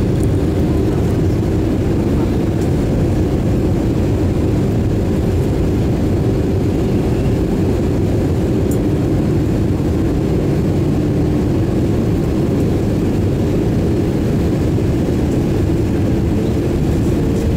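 Jet airliner cabin noise heard inside the cabin beside the wing engine during the approach: a steady low rush of turbofan engine and airflow, with a steady hum.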